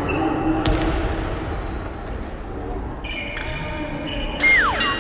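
Basketball being dribbled on a hardwood gym floor, the bounces thudding and echoing in the hall. Near the end come high sneaker squeaks on the hardwood, one of them a quick falling squeal.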